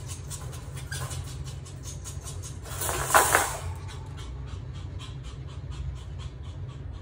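Pomeranian puppy panting, short breaths about four a second, with one louder sound about three seconds in as it goes over the wire pen.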